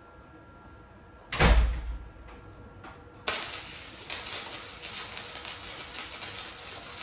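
A loud thump about a second and a half in, then, from about halfway through, the steady crackling hiss of a small Chicago Electric wire-feed welder laying a weld bead on steel square tubing.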